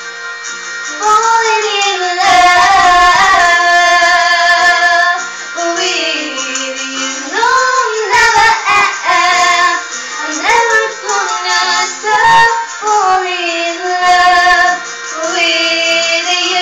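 Two women singing with acoustic guitar accompaniment; the voices come in about a second in.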